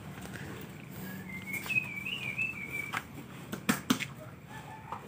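A high, wavering whistle that lasts over a second, starting about a second and a half in. Near the end come two sharp knocks close together.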